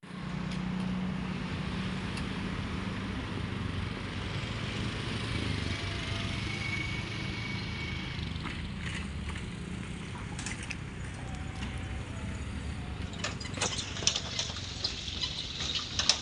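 Road traffic rumbling, with a steady engine hum strongest in the first few seconds. Sharp clicks and rattles come in scattered over the last few seconds.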